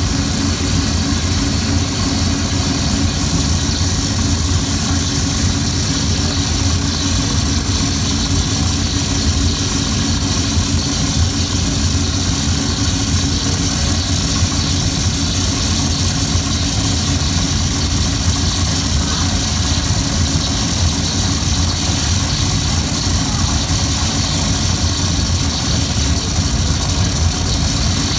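Steady, dense electronic noise drone made from amplified glass rattling inside a boiling pan. A constant low rumble sits under a band of hiss, unchanging throughout.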